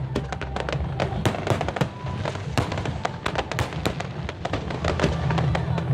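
Fireworks going off in quick succession, many sharp bangs and crackles a second, over a low rumble, with music playing underneath.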